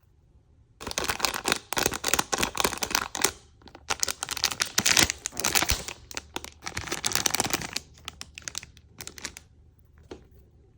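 Crinkly packaging being torn open and handled: dense crackling and ripping that starts about a second in, goes on in bursts for several seconds, and dies away near the end.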